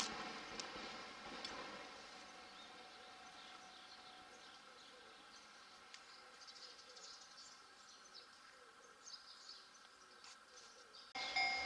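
Train noise dying away over the first second or two, leaving faint outdoor ambience with scattered short, high chirps. Near the end it cuts suddenly to a louder train sound with steady tones.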